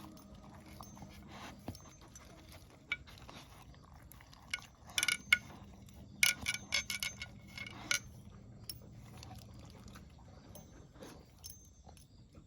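Dry pet food clinking and clattering against a food bowl as a pet eats, in two busy spells of clinks about five seconds in and from about six to eight seconds in.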